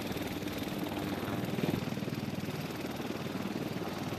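UH-1Y Venom helicopter running on the ground with its four-bladed main rotor turning: a steady, rapid chop of the blades over the whine of its twin turboshaft engines.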